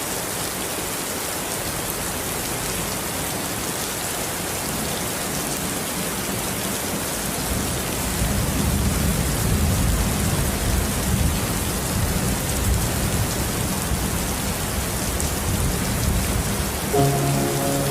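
Steady rain falling. From about halfway through, a low rumble of thunder joins it and the sound grows a little louder.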